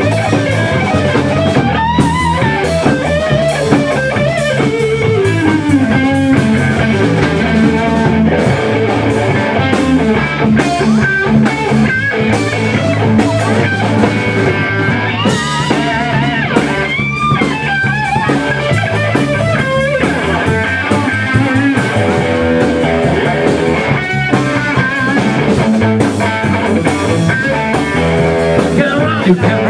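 Live rock band playing an instrumental passage: electric guitar lead lines that bend up and down in pitch, over bass guitar and a drum kit.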